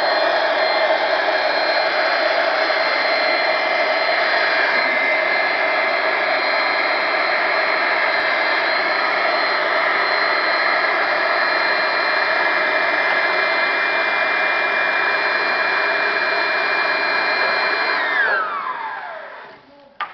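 Electric air blower running steadily with a rush of air and a whine, inflating a giant balloon. About 18 seconds in it is switched off and its pitch falls away as the motor spins down.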